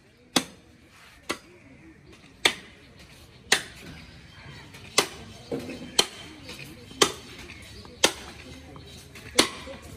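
Butcher's cleaver chopping beef: about nine sharp strikes, roughly one a second.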